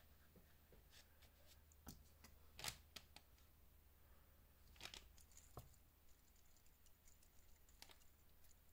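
Near silence with faint handling sounds: a few light clicks and taps and a brief rustle as a hand moves around on the desk.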